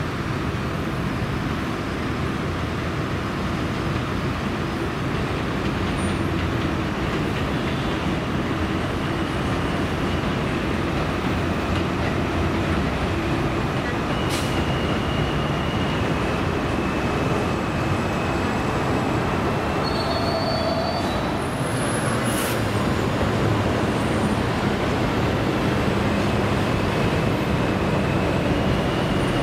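New York City subway N train running along the elevated steel structure of the BMT Astoria Line, a steady rumble mixed with road traffic below, slowly growing louder. From about halfway, thin high wheel squeal comes and goes.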